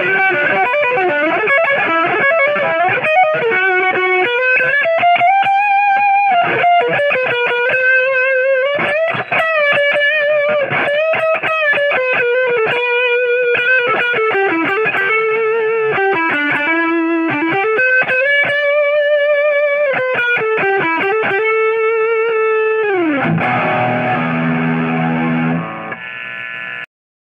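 Maison Les Paul-style electric guitar through a Marshall MG15 amp with distortion, playing a single-note lead with string bends and vibrato. About 23 seconds in it slides down in pitch into a ringing chord, which fades and cuts off just before the end.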